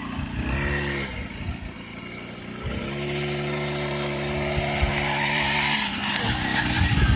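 Engine of an Eton Viper Jr 40cc youth ATV running. It revs up and back down about half a second in, holds a steady pitch for about three seconds, and sounds rougher near the end.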